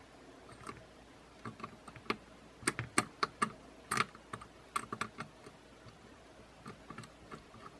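Light plastic clicks and taps as parts are pressed and fitted into a DJI Mavic Air 2 drone's body. It is an irregular run of short, sharp clicks, thickest and loudest in the middle, thinning to a few faint ones near the end.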